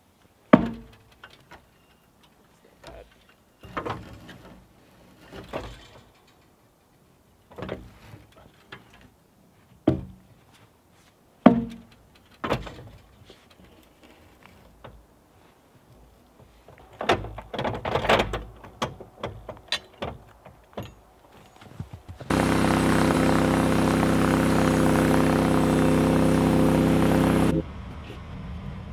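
An axe knocking and prying against a frozen, snow-covered white pine log, a series of separate thunks as the log is worked over on the sawmill bed. After about twenty seconds the portable sawmill's gas engine runs steadily for about five seconds, then cuts off abruptly.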